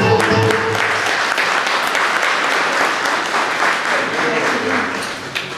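Applause from a small crowd, taking over as the music stops about half a second in, then dying away near the end.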